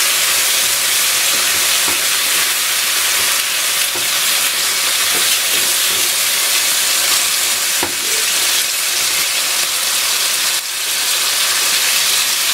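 Chopped red and green bell peppers and onion sizzling in a hot non-stick wok while a spatula stirs them, with a few light knocks and scrapes of the spatula against the pan.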